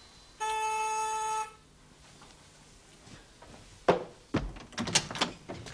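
A steady buzzing tone lasting about a second, then a door being handled and opened, with several sharp clicks and knocks.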